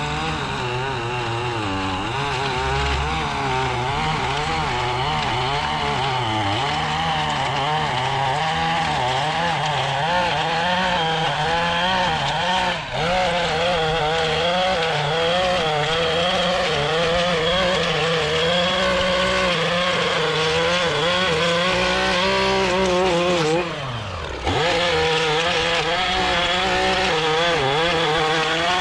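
Lawn mower engine running steadily while cutting grass, its pitch wavering slightly under load. Near the end it briefly drops in level and pitch, then picks back up.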